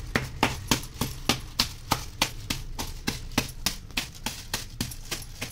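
Lumps of jaggery in a plastic bag being pounded against a stone floor with a hand-held stone: a steady run of sharp knocks, about three a second, breaking the jaggery into small pieces.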